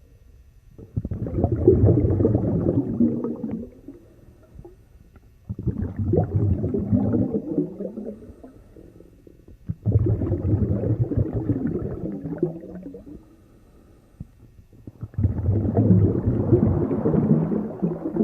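Underwater ocean sound: four bursts of low, gurgling bubbling and rushing, each a few seconds long, coming about every four and a half seconds with quieter gaps between.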